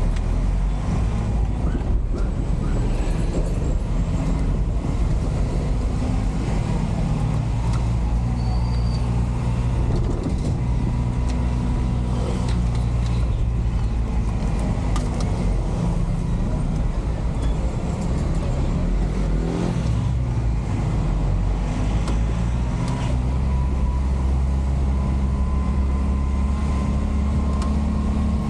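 A truck's engine and road noise heard from inside the cab while driving slowly, the engine note stepping up and down a few times with throttle and gear changes. There are occasional short knocks and rattles.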